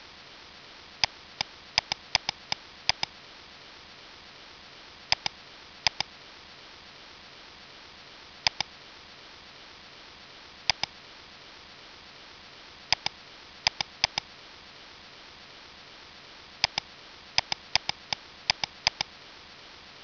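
Computer mouse and keyboard clicks, many in quick pairs and some in short runs, over a steady faint hiss.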